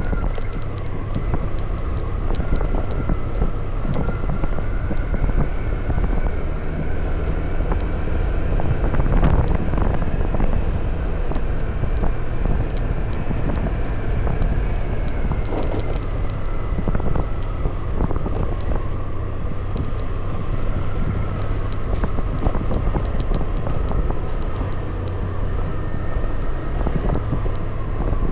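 Wind rushing over the microphone on a moving motorbike, over the steady drone of its engine, which drifts slowly up and down in pitch.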